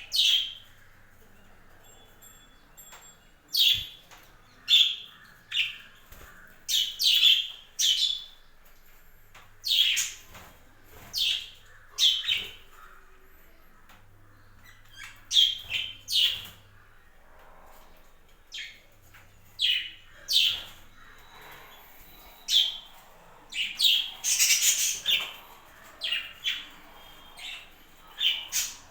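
Budgerigars chirping: short, sharp, high calls coming irregularly, often several in quick succession.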